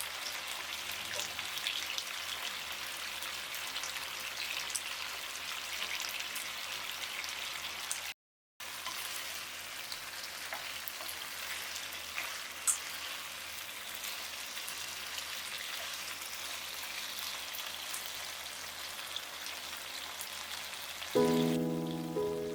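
Chicken wings sizzling as they cook, a steady hiss with scattered small crackles, cutting out for a moment about eight seconds in. Background music comes in near the end.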